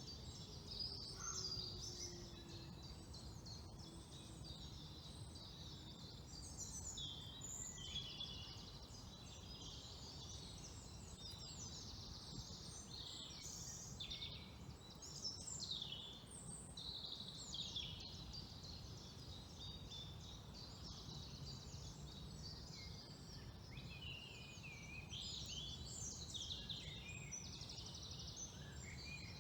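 Several wild songbirds singing at once, with many quick overlapping chirps and trills throughout, over a low steady background rumble.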